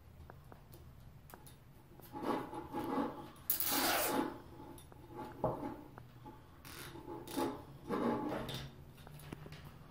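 Plastic zip tie being cinched around a copper pipe and wire. There are short rasps and handling rubs, and a loud zipping rasp a few seconds in as the tail is pulled tight. Shorter rasping pulls follow later.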